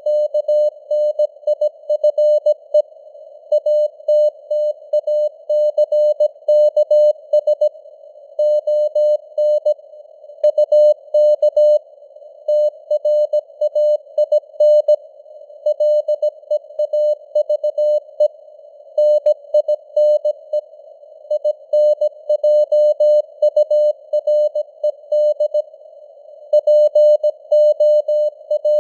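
Morse code (CW) tone of about 600 Hz keyed on and off at 17 words per minute in dots and dashes, spelling out text. Between the elements a faint band of simulated radio receiver hiss sits around the tone.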